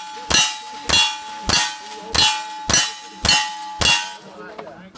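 A fast string of gunshots, about two a second, each followed by steel targets ringing from the hit; seven shots, the string stopping about four seconds in.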